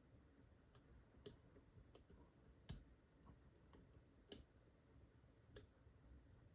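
About half a dozen faint, irregularly spaced small clicks from a lock pick and tensioner working a Mul-T-Lock Garrison padlock's spool-pinned core. The lock is in a false set, with pin 4 counter-rotating under the pick.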